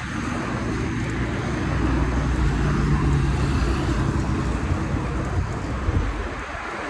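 Road traffic passing alongside: a vehicle's engine hum swells to its loudest about three seconds in and then fades, over a steady low rumble.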